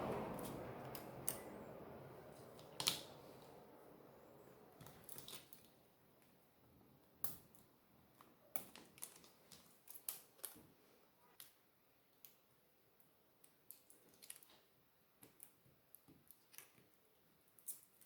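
Faint, scattered small clicks and taps from hands and tools working on a tablet's internals as the new screen's ribbon cable is connected. A soft rushing noise fades out in the first couple of seconds.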